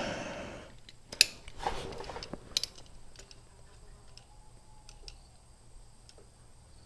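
Calipers being handled and closed on a motorcycle chain's rivet head to measure its flare: a few light metallic clicks, the sharpest about a second in and again near two and a half seconds in, then fainter ticks over quiet room tone.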